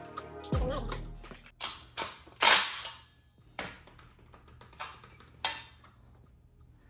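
Background music ends with a falling tone, followed by about six irregular, sharp metallic taps and clinks from the rear wheel spacers and axle parts being handled and fitted. The loudest clink comes about two and a half seconds in.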